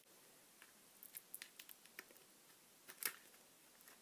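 Faint scattered clicks and rustles of hands handling an RC truck's sleeved motor wires, plugging them back into the speed controller, with one louder click about three seconds in.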